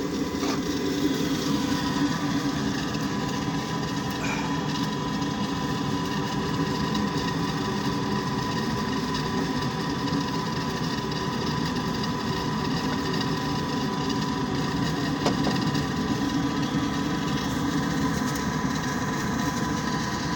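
KeepRite G9MXE condensing furnace's inducer fan motor running steadily, a continuous hum with a steady high tone over it.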